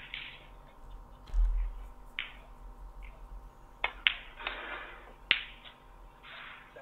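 Snooker balls clicking: the cue tip strikes the cue ball and it knocks into a red almost at once, about four seconds in, with another sharp ball click just over a second later. A dull low thump comes about a second and a half in.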